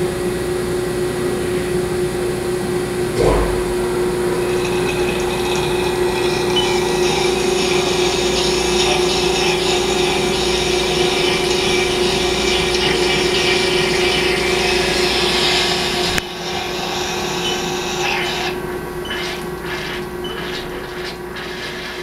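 Haas ST30 CNC lathe turning a part, with a steady hum from the running machine and a thump about three seconds in. A hiss of metal cutting runs for about ten seconds while a stringy chip peels off the tool, then stops suddenly, followed by a few short clicks.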